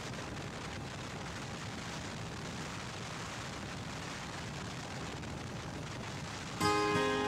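Steady rushing wind and road noise on the microphone of a camera mounted on a moving motorcycle, with no clear engine note standing out. Acoustic guitar music starts suddenly near the end.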